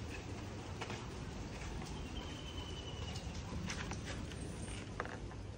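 Steady rain falling, with a high thin call held for about a second midway through. A few light clicks in the second half as a hand takes hold of the sliding glass door's handle.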